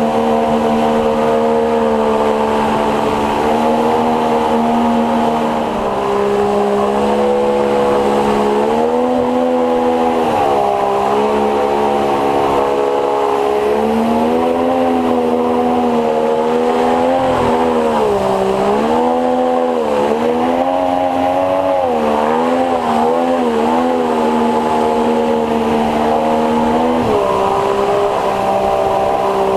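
50 hp two-stroke outboard motor with a water-jet drive pushing an inflatable boat upriver, running loud and continuous. Its pitch rises and falls again and again through the middle as the throttle is eased and opened, and it settles to a steady note near the end.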